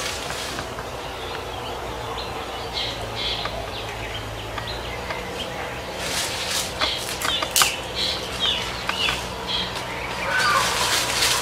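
Dry leaves rustling and crackling as they are gathered by hand, most of it about six to eight seconds in, while birds chirp repeatedly in short, falling calls.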